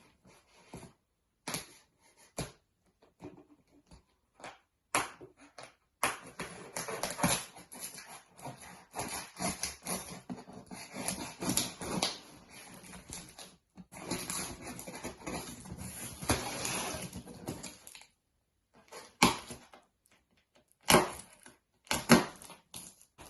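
A large cardboard box being cut and torn open by hand with a knife, with scattered clicks and scrapes, then a long stretch of dense scraping and rustling about a quarter of the way in, and a few sharp tearing noises near the end.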